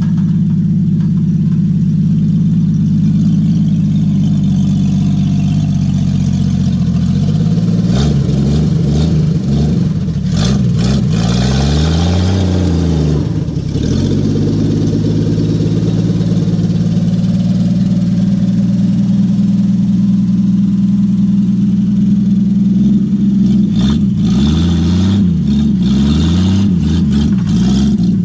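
Old Willys pickup truck's engine running as the truck drives by. Its pitch rises and falls about a third of the way in, and again near the end.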